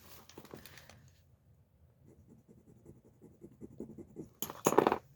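Gold-tone earring being rubbed back and forth on a test stone for a gold scratch test: faint, rapid scratching strokes, with a louder brief scrape or brush near the end.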